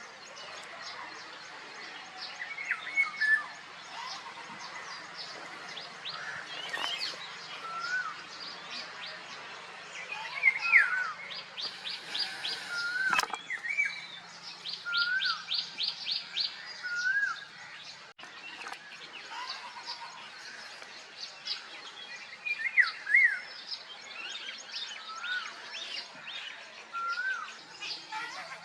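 Several songbirds chirping and singing, with short fluty whistled phrases repeated every second or two and a couple of rapid high trills near the middle.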